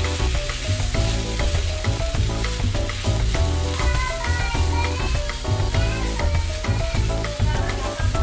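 Chicken and vegetable filling sizzling in a non-stick frying pan as it is stir-fried, the spatula turning it over and scraping the pan. Background music with a steady bass beat and a melody plays over it.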